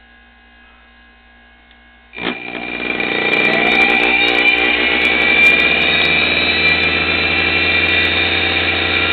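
DC motor driven by a repaired MC60 treadmill motor-control board, starting about two seconds in and speeding up with a rising whine, then running steadily. It is noisy because it is rattling around loose on the table.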